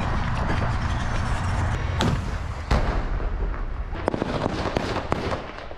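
Combat gunfire: a steady low rumble, then sharp gunshot cracks from about two seconds in, coming irregularly for the rest of the time, the loudest a little before the three-second mark.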